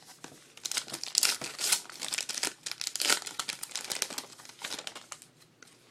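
Trading-card pack wrapper crinkling and tearing as it is opened by hand, in a dense run of crackles that dies away near the end.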